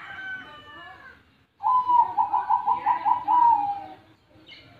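Zebra dove (perkutut) cooing: one loud call starting about a second and a half in, an opening note followed by a quick run of about six short notes and a long falling final note, lasting about two and a half seconds. Fainter bird calls come in the first second.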